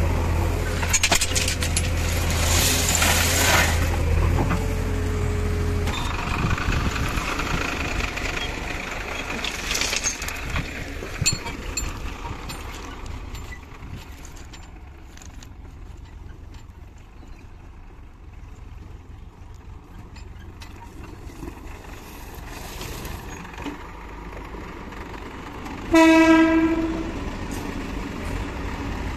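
Backhoe loader's diesel engine running while a bucket of railway ballast stones pours into a tractor trolley with a rattling rush. A tractor engine then runs more quietly, and near the end a horn sounds once for about a second, the loudest sound.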